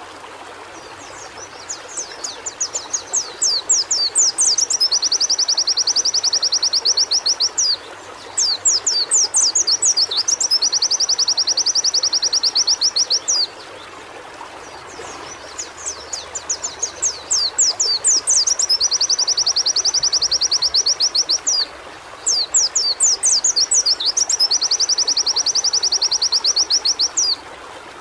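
A white-eye (pleci) singing in about four long bouts, each opening with quick sweeping notes and settling into a fast, even, high trill, with short pauses between them. A steady rushing hiss runs underneath.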